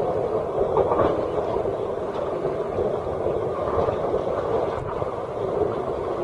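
Sea water sloshing and lapping around a camera held at the waterline, a steady muffled wash with a couple of brief splashier peaks.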